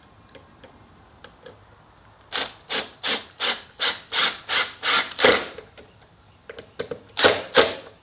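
Cordless drill driving the hose bib's mounting screws into the wooden block behind the wall, in short trigger pulses: a run of about ten, roughly three a second, then two more near the end as the screws are snugged tight.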